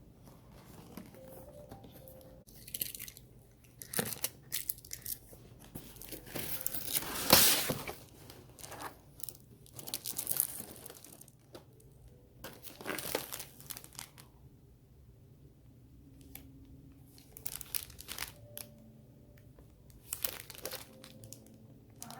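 Packaging being torn open and crinkled by hand, in irregular spells with a few sharp clicks; the loudest tearing comes about seven seconds in.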